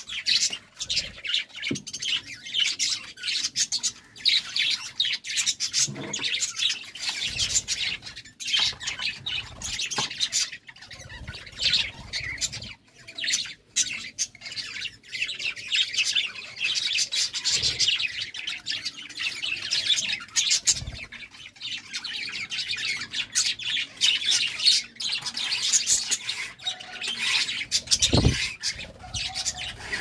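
A flock of budgerigars chattering without pause, a dense stream of quick high chirps and squawks overlapping one another.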